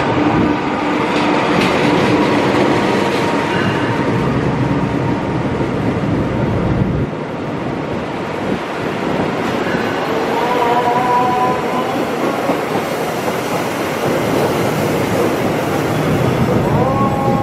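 A CC206 diesel-electric locomotive runs through at speed, its heavy engine rumble passing in the first several seconds. Its passenger carriages follow, clattering over the rail joints. A held chord-like tone sounds twice in the second half.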